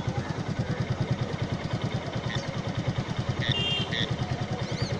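Auto-rickshaw engine idling with a steady, rapid low putter. A few short high chirps sound about two and a half to four seconds in.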